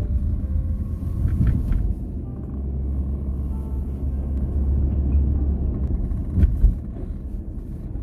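Car driving on a paved road, heard from inside the cabin: a steady low rumble of engine and tyre noise, with a few short knocks, the loudest one late on.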